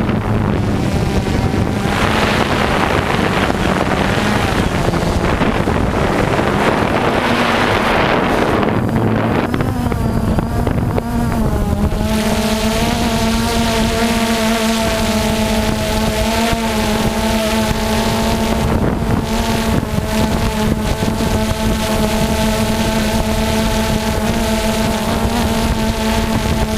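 Small engines of radio-controlled off-road cars running, with wind noise on the microphone. About halfway through, a steady hum of unchanging pitch sets in and holds.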